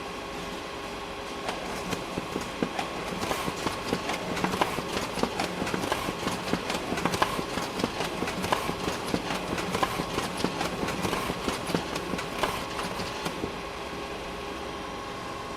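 Photocopier running with a steady hum, breaking into rapid mechanical clicking and clattering from about a second and a half in until near the end, when it settles back to the hum alone.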